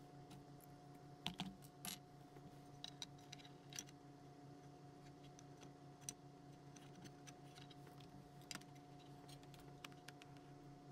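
Faint small clicks and taps of hands handling stranded wires and small tools on a workbench, scattered irregularly, over a steady low hum.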